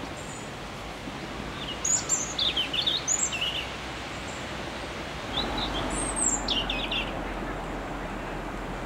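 European robin singing: two short phrases of high, thin warbling notes, the first about two seconds in and the second about five and a half seconds in, over steady background noise.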